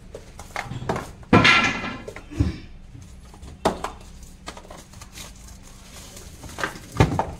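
Small cardboard jewellery boxes knocking and clattering as they are grabbed and shifted by hand, with a few sharper knocks and a brief louder scrape about a second and a half in.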